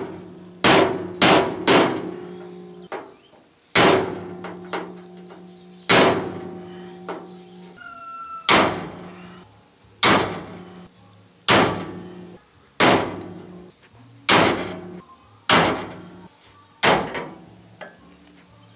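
A hammer strikes a flat bar held against the bent chrome grille of a 1966 Chevy Biscayne, knocking the grille bars back into line. There are about a dozen sharp blows, one every second or two, and the metal rings briefly after each.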